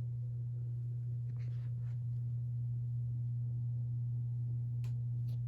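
NuTone Verandah Deluxe ceiling fan running with a steady low motor hum. Two faint clicks come near the end.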